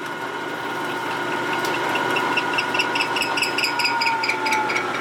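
Vertical milling machine running with a long drill bit in its spindle: a steady whine, joined about one and a half seconds in by a light, rapid, even ticking.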